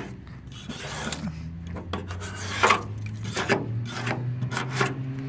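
Razor blade scraping peeling base-coat paint off the body panel of a 1972 Mercury Cougar in irregular short strokes, the paint coming away easily down to the metal. A steady low hum runs underneath.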